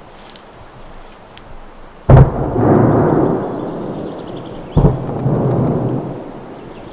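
Two heavy booms about two and a half seconds apart, each sharp at the start and followed by a long rolling echo that dies away over a couple of seconds; a third boom begins at the very end.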